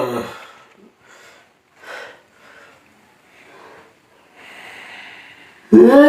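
A man snorting, sniffing and breathing hard through an irritated nose. Short sniffs and breaths come between a loud falling voiced sound at the start and a sudden loud strained voiced sound near the end.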